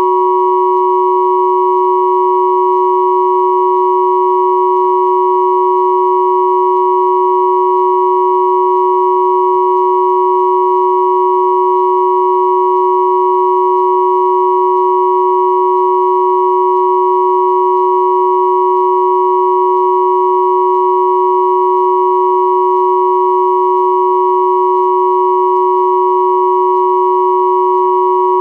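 Synthesized pure sine tones at 369, 963 and 1111 Hz sounding together as one steady, unchanging chord-like hum.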